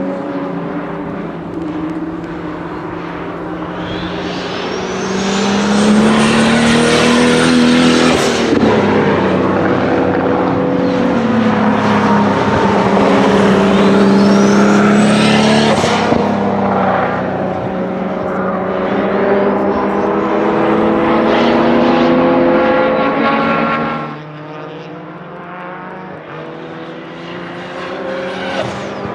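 Turbocharged BMW E34 535i's 3.8-litre M30 straight-six pulling hard through several runs of revs. In three of the loudest stretches a high turbo whistle climbs in pitch and holds. The engine drops to a quieter running about 24 seconds in.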